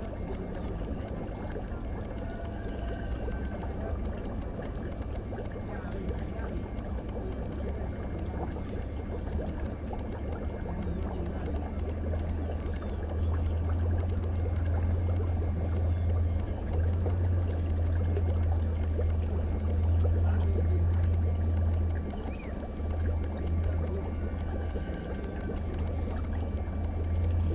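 Steady trickling water noise from an aquarium tank's aeration or filter. Underneath is a low rumble that grows louder about halfway through and drops back briefly a couple of times.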